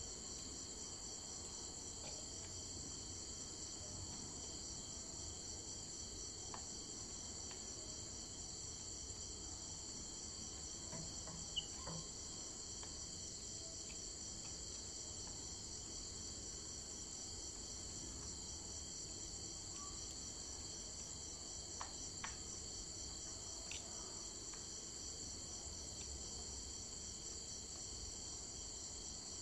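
Steady chorus of insects trilling at several high pitches at once, with a few faint short clicks scattered through it.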